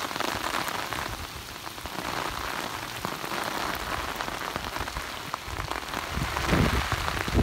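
Heavy rain falling on the surface of open water, a steady dense hiss.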